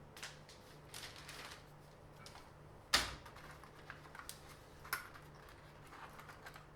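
Scattered light clicks and rustling of small objects being handled, with one sharp knock about three seconds in and a smaller knock near five seconds.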